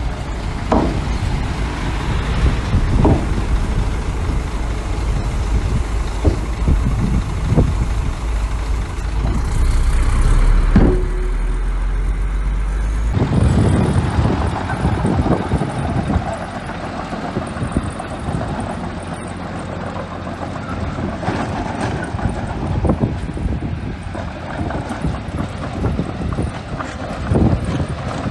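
Small bulldozer's diesel engine running as it works, with scattered metallic clanks from its tracks and blade. The low rumble drops off abruptly about halfway through.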